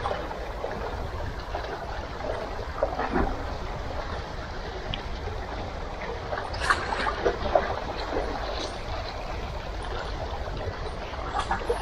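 Seawater lapping and splashing against concrete tetrapods, with a low wind rumble on the microphone. A few brief, sharper sounds stand out about halfway through and again near the end.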